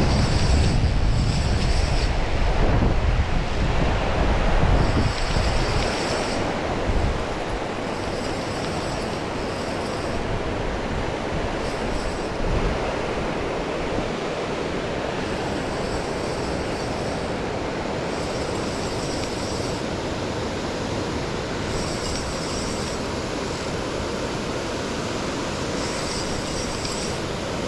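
Waterfall rushing steadily. Wind buffets the microphone with a low rumble for the first several seconds.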